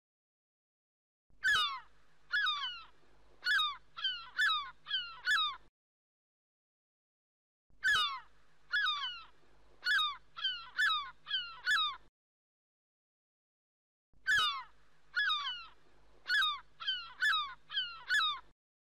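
Seagull calling: a run of about seven short calls, each falling in pitch. The same run plays three times over, with pauses of about two seconds between.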